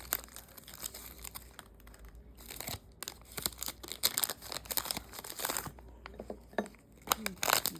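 Plastic candy-bar wrapper crinkling and crackling in irregular bursts as Twix bars are pulled out of the opened package.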